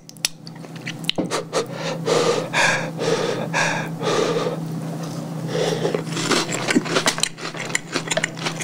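A person eating a milk-dipped Oreo off a spoon: breathy mouth noises as it goes in, then wet chewing with many small mouth clicks. A steady low hum runs underneath.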